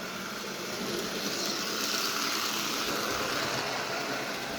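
Lionel No. 50 gang car running on O-gauge toy train track on AC power, its small motor and wheels making a steady whirring hiss that grows louder for a couple of seconds near the middle and then eases.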